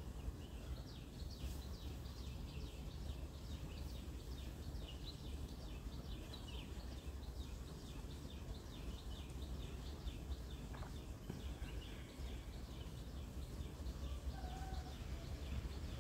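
Small birds chirping: many short, high chirps in an irregular patter, over a steady low background rumble.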